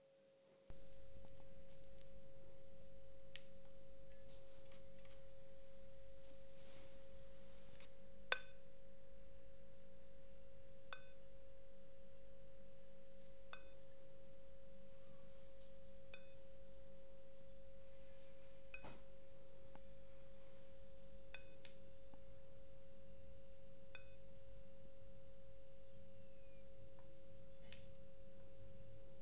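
A Dell Inspiron 3537 laptop giving off one unbroken, steady beep tone: the fault beeping the owner is trying to cure. Underneath there is a low hum that comes in about a second in, and faint clicks come about every two and a half seconds.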